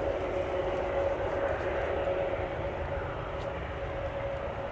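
Airbus A321neo's jet engines running at low taxi thrust, heard at a distance: a steady rushing hum with a steady whine running through it.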